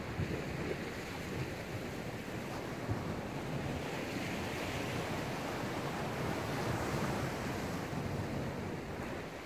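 Choppy sea surf washing in and drawing back along a rocky shore: a steady rushing wash that builds a little towards the middle.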